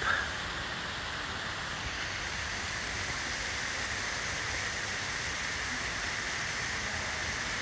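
Water from a fountain close by splashing in a steady, even rush.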